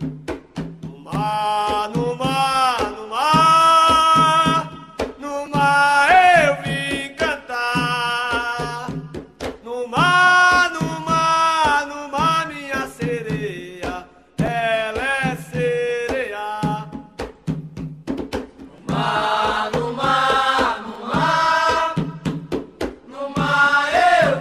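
Puxada de rede, a Bahian fishermen's net-pulling song: voices sing phrases with short pauses between them over a steady low drum beat.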